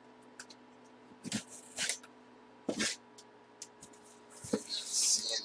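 Box cutter slicing through packing tape on a cardboard shipping carton in a few short scraping strokes, then the cardboard flaps rustling as they are pulled open near the end.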